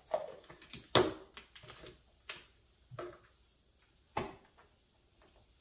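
A spoon clicking and knocking against a small container while sofrito is scooped out: about six short, separate taps spread over four seconds, the loudest about a second in.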